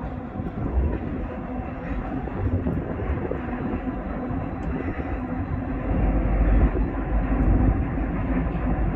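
Norfolk Southern freight train crossing a steel truss bridge, its diesel locomotives and cars making a steady rumble that grows louder about six seconds in.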